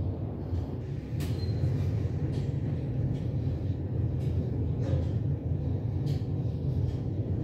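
Steady low rumble and hum of a glass panoramic lift cabin moving in its shaft, heard from inside the cabin, with a few faint clicks. It grows a little louder about a second in.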